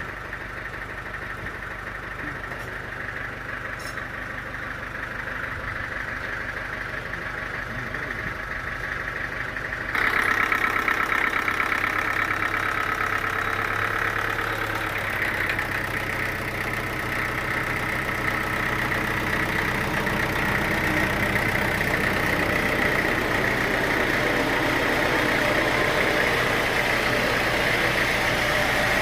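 Sawmill machinery running. A steady engine note, then about ten seconds in the sound jumps abruptly louder and noisier, with a strong high whine that holds to the end.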